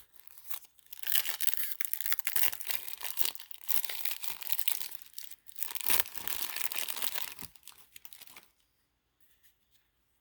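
Foil wrapper of a Magic: The Gathering Jumpstart booster pack being torn open and crinkled by hand, a dense crackling that stops about eight and a half seconds in.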